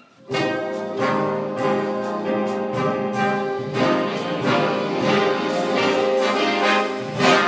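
A jazz big band of saxophones, trumpets and trombones with a rhythm section starts playing about a quarter second in, holding full brass chords punctuated by sharp drum hits. The band swells louder near the end.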